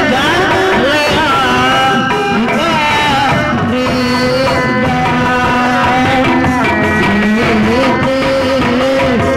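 Live Sundanese reak music playing loudly: a wavering, ornamented melody line with long held notes over drumming.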